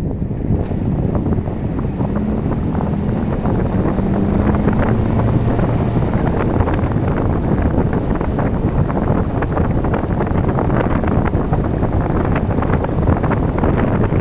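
Car driving at moderate speed along a rough asphalt track: steady engine and tyre noise, with wind buffeting the microphone throughout.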